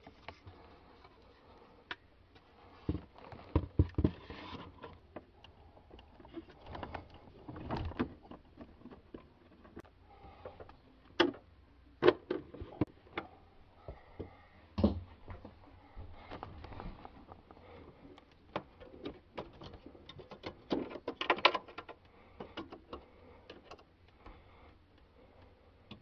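Scattered knocks, clicks and rustles of hard plastic being handled: a refrigerator evaporator fan motor's plastic cage being worked into place in the freezer's rear compartment. A few sharper knocks come partway through.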